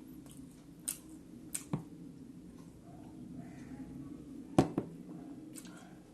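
Close-up eating sounds of a rice meal: a few sharp wet clicks and smacks from chewing and handling the food, the loudest about four and a half seconds in, over a steady low hum.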